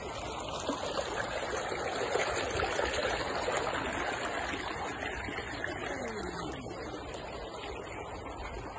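Fast-flowing brown floodwater rushing and churning, swirling around a person's legs as they stand in it; a little louder about two to three seconds in.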